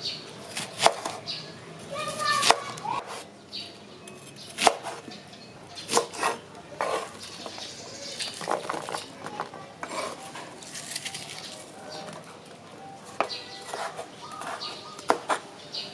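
Kitchen knife cutting onion and bell peppers on a wooden cutting board: irregular knocks of the blade striking the board.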